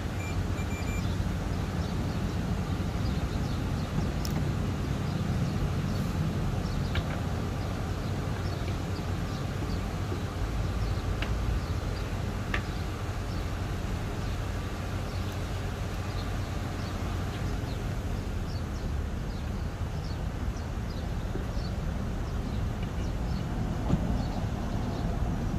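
Steady low background rumble, with a few faint light clicks.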